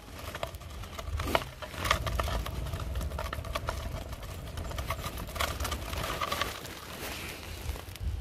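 Kick scooter's small hard wheels rolling over rough, cracked asphalt: a steady low rumble with scattered clicks and rattles.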